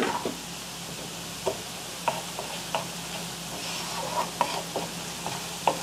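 Diced onions and chopped garlic sizzling gently in olive oil and butter in a skillet, while a wooden spoon stirs them, tapping and scraping the pan now and then.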